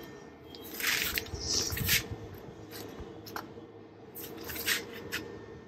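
Cooling fans of a Kings 1500 W pure sine wave inverter running steadily, working hard under the load of a 1600 W coffee machine that is heating up. Short hissing splutters come through about one to two seconds in, and several sharp plastic clicks follow as the machine's parts are handled.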